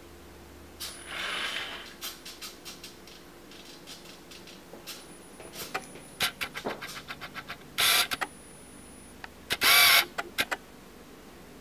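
Small electric motors of a DIY Bluetooth RC toy car whirring in short bursts as it drives, stops and turns, with clicks and knocks between the runs. The two loudest bursts come in the second half.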